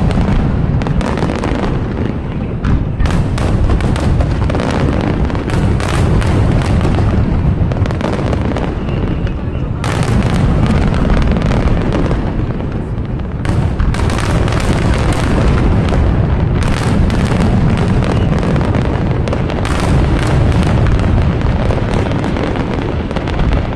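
Fireworks display: aerial shells bursting in rapid, overlapping succession, a continuous low booming with sharp cracks and crackle on top. A sharper cluster of bursts comes about ten seconds in and again a few seconds later.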